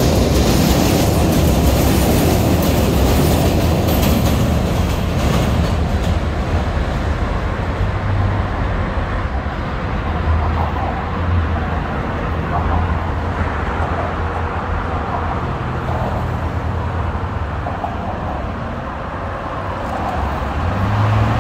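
New York City subway train running past close by on elevated bridge tracks. Its rolling noise is loud for the first several seconds, then fades as the train pulls away, leaving a steady low rumble of traffic on the bridge.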